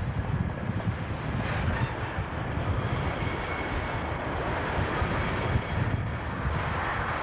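Diesel locomotive engine running with a steady low rumble while a rake of loaded coal wagons rolls along the track.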